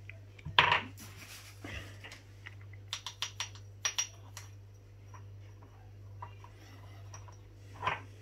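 Light clicks and taps of a white plastic spoon and dry whole cloves against a small glass jar as cloves and salt are spooned into it. The clicks come in scattered bunches, loudest about half a second in and again around three to four seconds in, over a faint steady low hum.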